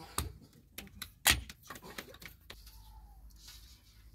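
Small hatchet splitting kindling: a run of sharp wooden knocks in the first two seconds or so, the loudest just over a second in, then quieter.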